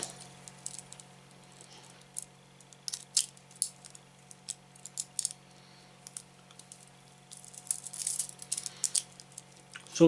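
Small metal handcuffs clicking and rattling as a key is worked in the lock of a cuff worn on the wrist, a scatter of light metallic ticks that bunch up around the middle and again near the end; the lock is stiff and fiddly to release. A faint steady hum runs underneath.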